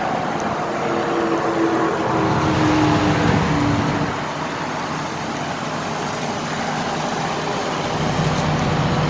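Silver Eagle coach's diesel engine running, heard close beside the bus as a steady rumble and hiss. A falling tone runs from about one to four seconds in.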